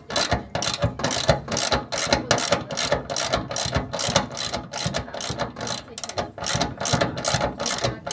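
Hand ratchet clicking in quick, even strokes, about four clicks a second, while a worm-drive hose clamp on the fuel-pump lines is tightened.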